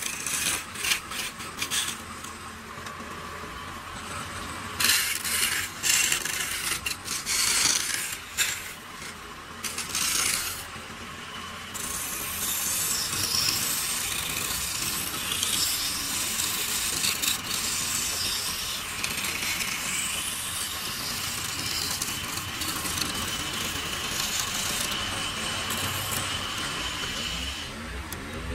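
A hand-held turning tool cutting into a spinning wooden blank on a lathe, throwing off shavings. The cutting comes in short bursts for about the first twelve seconds, then turns into a steadier scraping hiss.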